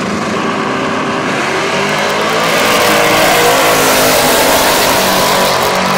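Drag-racing cars launching from the line and accelerating flat out down the strip, the engine noise building to its loudest about three to four seconds in as a car passes close by, then easing.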